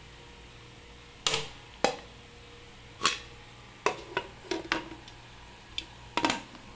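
Metal pressure cooker lid being set on the pot and twisted shut: a string of about nine sharp metal knocks and clicks as lid meets rim and the handle is turned, ending with the lid clicking into its locked position.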